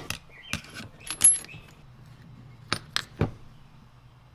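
Light metallic clicks and clinks of hand tools and small steel engine parts being handled on a wooden workbench. One clink about a second in rings briefly and high, and three sharp clicks follow close together near the three-second mark.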